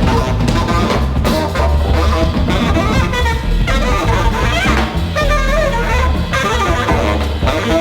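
Background music: an upbeat jazz-style band with saxophone melody, bass and drum kit.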